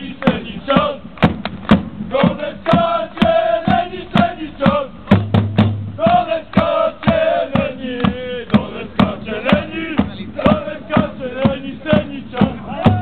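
Group of fans chanting together in unison to a steady, repeated drumbeat.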